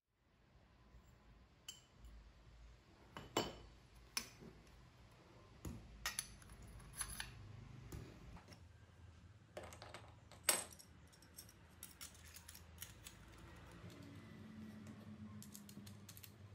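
Metal tubes and fittings clinking and tapping as they are handled and fitted together: a dozen or so sharp clicks, the loudest about three and a half and ten and a half seconds in, over a faint low hum.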